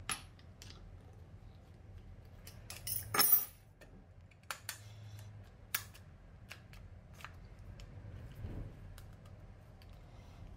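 Scattered metal clicks and clinks from handling a compact router (trimmer): a wrench on the collet nut after a bit change, then the motor body being slid and clamped into its clear plastic base. There is a louder clatter about three seconds in.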